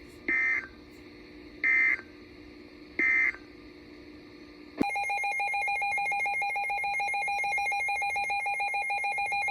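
Emergency Alert System signals: three short bursts of SAME digital data, about a second and a half apart, the end-of-message code closing a flash flood warning. About five seconds in, a steady EAS attention tone starts suddenly and holds, announcing the next warning.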